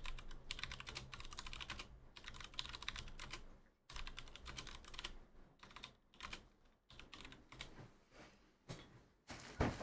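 Typing on a computer keyboard: quick, irregular key clicks in short runs with brief pauses.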